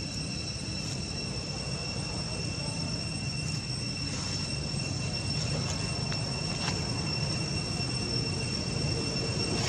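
A steady high-pitched whine that holds one pitch without a break, over a low rumbling background, with a few faint clicks about halfway through.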